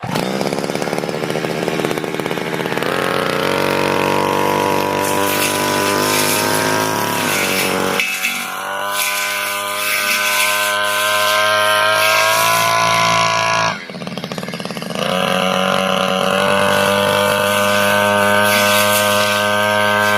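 Petrol brush cutter engine running hard with a small metal blade, cutting napier grass. It revs up a few seconds in, eases off about 8 seconds in, drops sharply near 14 seconds, then revs back up.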